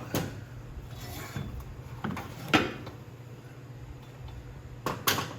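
Handling noise from a small tiller-cultivator being laid over and worked on: a few scattered clunks and scrapes, the loudest knock about halfway through and two more close together near the end.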